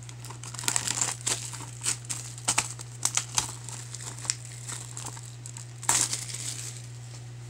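Plastic shrink wrap being torn and peeled off a Blu-ray case, crinkling in irregular bursts, loudest about six seconds in.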